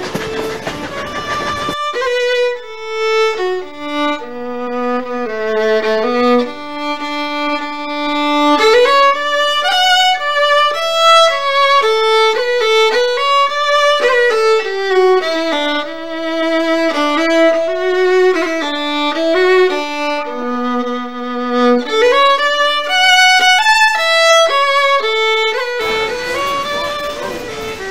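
Background music: a solo fiddle playing a melody. The noise of the moving train lies under it for the first two seconds and again near the end.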